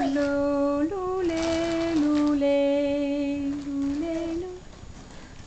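Toddler singing a simple tune in long held notes that step up and down between a few pitches, then stopping about four and a half seconds in.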